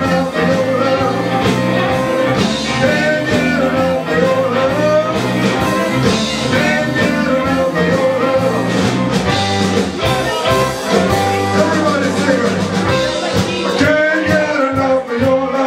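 Live blues-rock band playing, with electric guitars, bass and drums, and a singer's voice over them.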